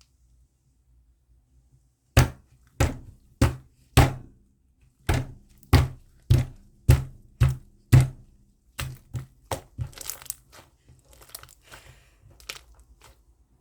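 Slime being slapped and pressed by hand: about ten sharp, loud slaps with a dull thud in a steady rhythm of just under two a second, then a run of softer crackling clicks near the end.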